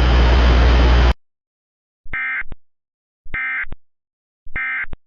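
Emergency Alert System end-of-message (EOM) signal: three short bursts of screechy SAME digital data tones, about a second apart, marking the end of the alert. Before them, loud static with a low hum cuts off suddenly about a second in.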